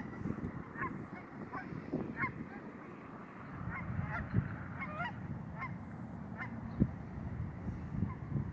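Several geese honking, short calls overlapping irregularly over a low rumble. Two sudden low thumps come partway through, the second the loudest sound.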